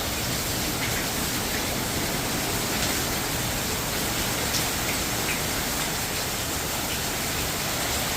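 Steady hurricane rain, an even unbroken hiss with a few faint drop ticks through it.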